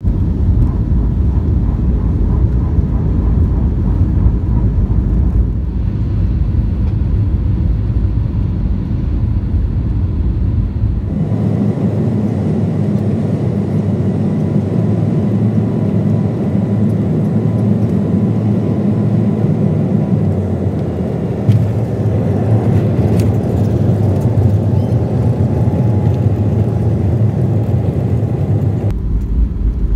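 Cabin noise of an Avianca jet airliner landing, heard from a window seat: a steady rumble of the jet engines and rushing air. About eleven seconds in the noise turns suddenly fuller and brighter, and a little past two-thirds of the way through a single short thump marks the wheels touching down, followed by the rumble of the rollout on the runway.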